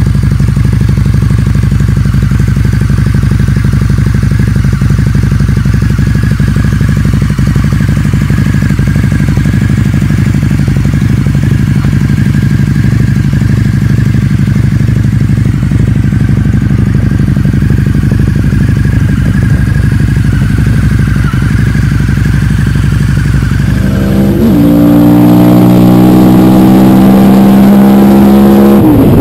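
Harley-Davidson V-Rod's liquid-cooled V-twin idling steadily. About 24 seconds in it gives way to a motorcycle engine under hard acceleration, its pitch climbing, with a brief dip near the end at a gear change.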